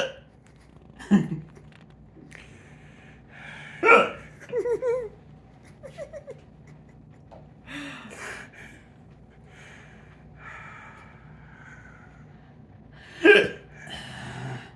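A person hiccuping: loud, sharp hiccups about a second in, around four seconds in and again near thirteen seconds, with quieter short voiced sounds and breaths between.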